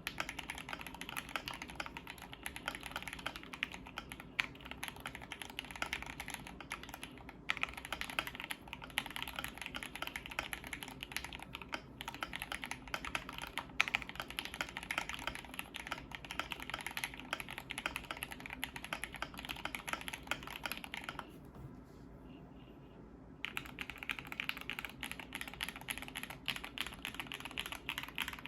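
Fast, continuous typing on a KBD75 v3.1 mechanical keyboard with lubed Gateron CJ linear switches on a brass plate, in the stock case with plate foam, under Soyamilk-clone keycaps. The typing stops for about two seconds roughly three-quarters of the way through.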